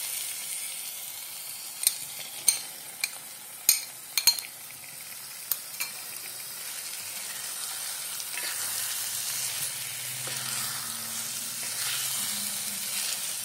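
Pea and tomato-onion masala sizzling in a kadhai, with a handful of sharp knocks about two to six seconds in as paneer cubes go into the pan. In the second half a wooden spatula stirs and scrapes through the masala.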